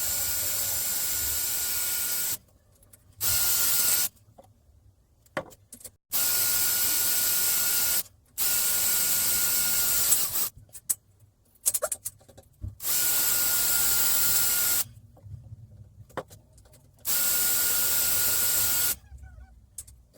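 Electric drill run in repeated bursts of one to four seconds with short pauses between, about seven times, its motor whining at a steady pitch while running and starting and stopping sharply.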